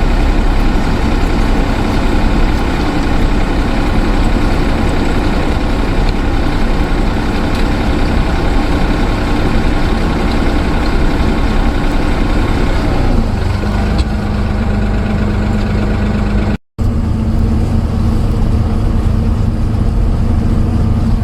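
An engine running steadily. About thirteen seconds in it settles into a steady lower note, and the sound cuts out for a moment a few seconds later before carrying on.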